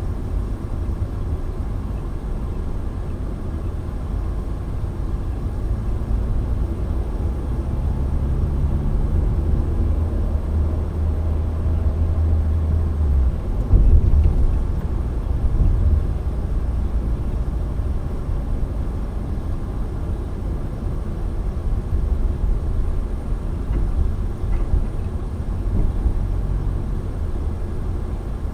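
Low rumble of a car on the move: engine and road noise, with a steady low engine drone for several seconds and a louder low bump about halfway through.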